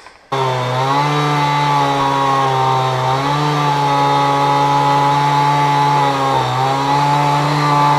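Two-stroke chainsaw running steadily at high revs, starting abruptly just after the start, with its pitch dipping briefly twice.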